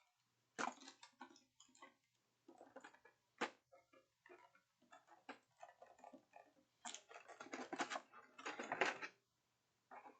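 Quiet handling of boxed board-game components: irregular clicks, taps and rustles of paper, card and plastic as items are picked up and set down, busiest from about seven to nine seconds in.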